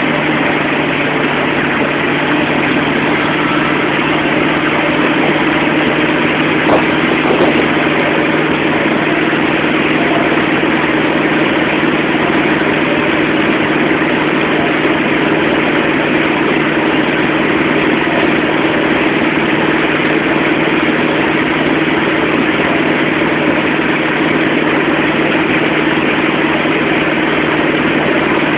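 Wake-surf tow boat's engine running at a steady speed under way, a constant drone, with the wash of the boat's wake churning behind it.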